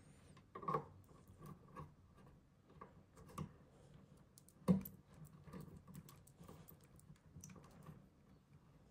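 Parts of a Tunze Osmolator 3 auto top-off system being handled and fitted together: scattered light clicks and taps, with a sharper knock about five seconds in.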